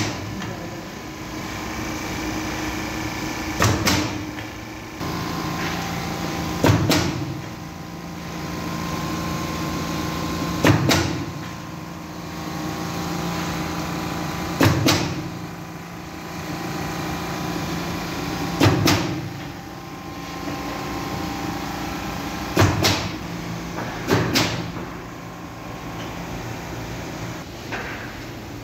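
Digital roll laminator running: a steady motor hum with several held tones, broken by a sharp clack about every four seconds.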